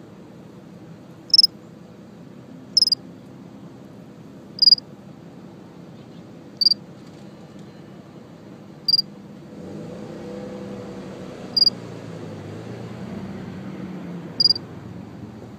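A short, high chirp repeated seven times, roughly every two seconds, over steady outdoor background noise. About ten seconds in, a vehicle passes in the background.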